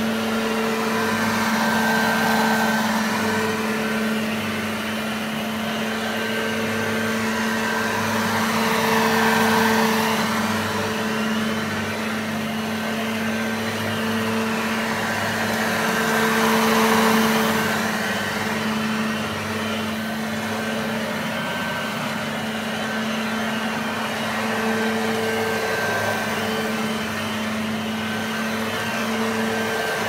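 Hoover Junior U1104 upright vacuum cleaner running steadily with a constant motor hum, its sound swelling a little about every seven or eight seconds.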